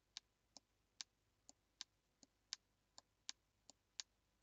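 Small tactile pushbutton on a breadboard being pressed over and over, giving a faint series of sharp clicks, about two or three a second.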